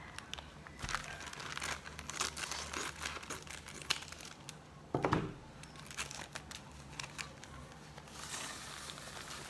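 Plastic bag of powdered skim milk crinkling and crackling as it is handled and snipped open with scissors. A brief voice-like sound about five seconds in is the loudest moment.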